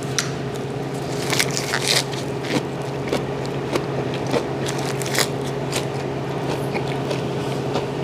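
A man biting into and chewing a lettuce wrap right at a handheld microphone: crunching and wet squishing mouth sounds, over a steady hum.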